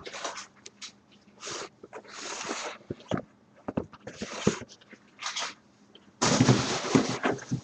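Cardboard boxes being pulled out of a larger carton and set down, with rustling and scraping in short bursts and light knocks, and a louder scrape about six seconds in.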